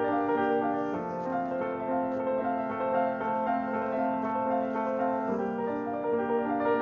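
Background piano music of slow, held chords, the bass note moving about a second in and again near the end.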